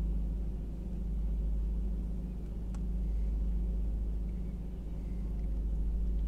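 Steady low engine rumble heard from inside a car cabin aboard a river cable ferry under way, swelling and easing slightly. A single faint tick comes about two and a half seconds in.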